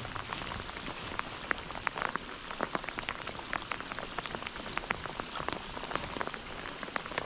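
Steady rain falling, heard as a soft even hiss with many irregular ticks of individual drops striking.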